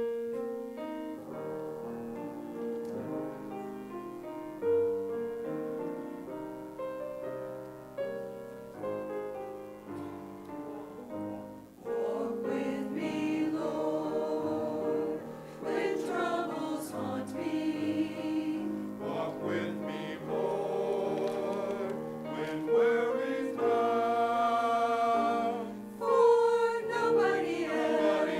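Church choir singing an offertory anthem with accompaniment, the voices entering about twelve seconds in after an instrumental introduction.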